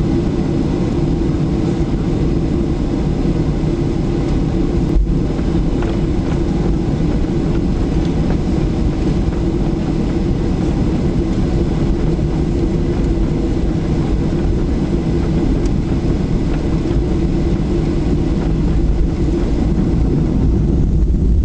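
Cabin noise of a Boeing 737-800 moving slowly on the runway: a steady low rumble from its CFM56 engines near idle and the rolling airframe, growing slightly louder near the end.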